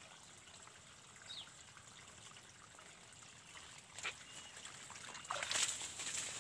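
Water starting to run from a garden hose about five seconds in and spraying onto the ground, after a single sharp click about a second earlier.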